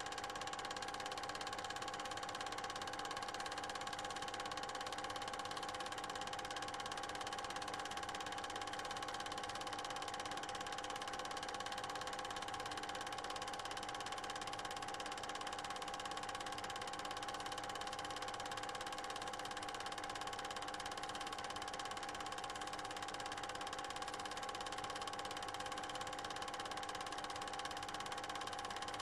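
Steady hum with several steady tones over a hiss, unchanged throughout, with no sound from the filmed scene.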